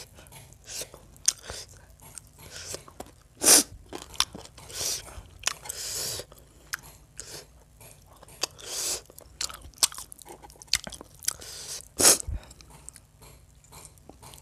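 Close-miked mouth sounds of eating chicken curry and rice by hand: wet chewing and lip smacking in short irregular bursts, with two louder sharp snaps about three and a half seconds and twelve seconds in.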